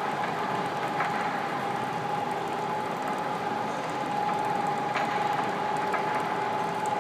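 Steady machine hum with an even, high whine from the chain-linked screw jacks lifting a steel tower silo, with a few faint clicks.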